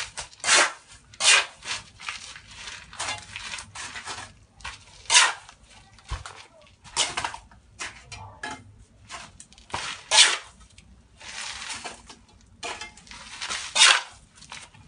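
Mason's trowel scraping cement mortar along the joints of a concrete hollow block wall, in repeated short irregular strokes with a couple of longer drawn scrapes.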